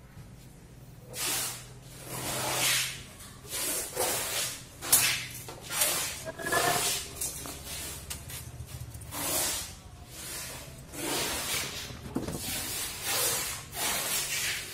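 Short hissing, rubbing noises come irregularly about once a second over a faint steady low hum.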